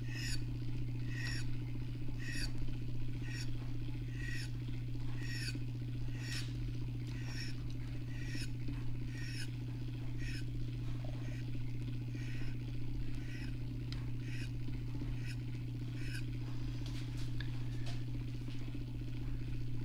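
Rod-turning motor running with a steady hum, with a short chirping squeak repeating about every two-thirds of a second as the epoxy-coated rod blank turns.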